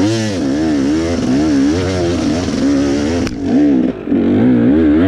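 Enduro dirt bike engine revving up and down about twice a second as the throttle is worked on a slippery, muddy climb, the rear wheel spinning for grip. The engine note drops briefly just before four seconds in, then the revving resumes.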